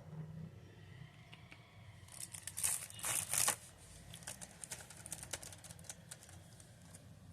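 Packaging crinkling and rustling as it is handled, in a few loud bursts about two to three and a half seconds in, then quieter scattered crackles and clicks.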